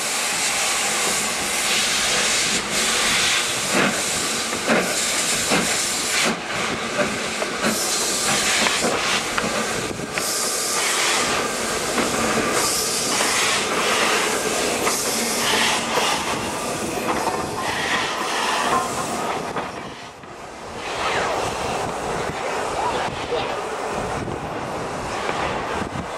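Steam locomotive working, its exhaust beats coming roughly once a second as hissing surges of steam, with a brief lull about twenty seconds in.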